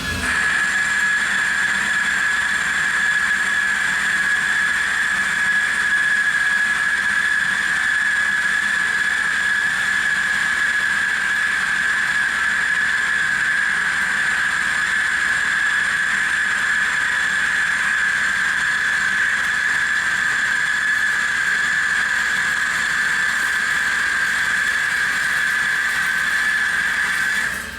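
Tormach Slant-Pro CNC lathe cutting 1045 cold-rolled steel, with a steady high-pitched whine that holds one pitch throughout and cuts off suddenly at the end.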